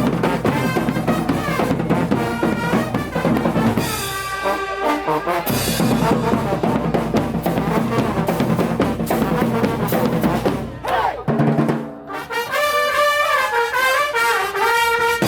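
Street brass band playing: trumpets and trombones over a drum kit. For the last few seconds the drums drop away and the horns carry a moving melody alone.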